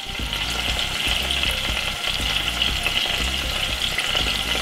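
Salmon fillets frying in extra virgin olive oil in a saucepan: a steady sizzle with fine crackling.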